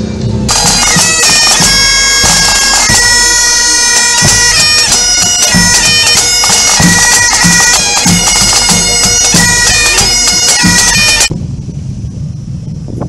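Scottish pipe band playing: Great Highland bagpipes sounding a melody over their steady drones, with snare and bass drums beating time. The music starts about half a second in and cuts off suddenly near the end, leaving a low rumble.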